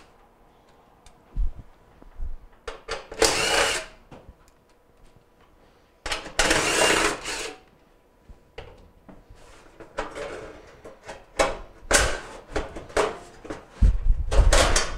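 Cordless drill with a quarter-inch socket spinning out the screws that hold a range's rear panel, in two runs of about a second each, then several short bursts and clicks. Low knocks near the end.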